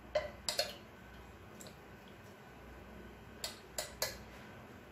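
Cooking oil heating in a nonstick frying pan, with a few sharp crackles over a faint hiss: three near the start and three more near the end.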